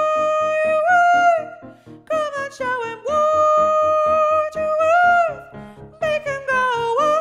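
Tenor line of an SATB choral arrangement, carried as long held notes that slide up and down between pitches, over a rhythmic chordal accompaniment. There are three held phrases, each dipping into a brief swoop, with a short drop in level about two seconds in.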